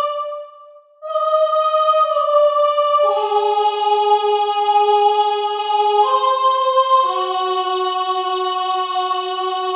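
Layered soprano voice singing long held notes. A single line breaks off briefly about a second in, then further held notes enter one after another and overlap into slowly shifting chords.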